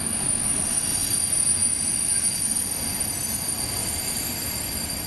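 Container freight train rolling past, wheels running on the rails with a steady high-pitched squeal over the rumble.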